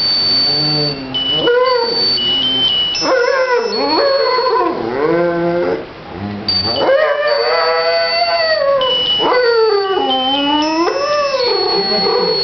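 A Dalmatian howling in a series of long, wavering howls that rise and fall in pitch. Steady high-pitched notes that step from one pitch to another sound along with it.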